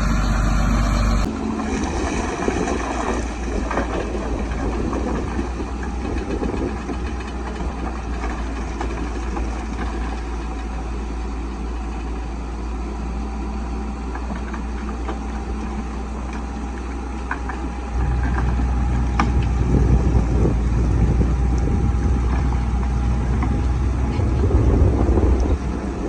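Caterpillar bulldozer's diesel engine running steadily, with a faint whine and a few sharp clanks. The sound changes abruptly about a second in and again about two-thirds of the way through, where it grows louder with more low rumble.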